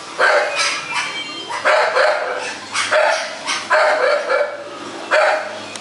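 Thai Bangkaew dogs barking repeatedly, a sharp bark roughly every second with short gaps between.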